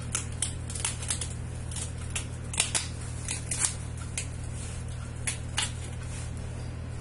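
A kitchen knife cutting through the tough mouth and jaw of a raw fish, giving a dozen or so irregular sharp crunching clicks as the blade works through bone and cartilage.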